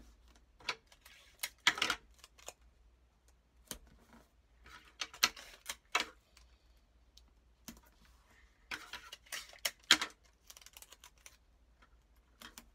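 Clear sticky tape being pulled and torn off a desk tape dispenser and pressed onto a paper book jacket: scattered clicks and short rips that come in three short spells.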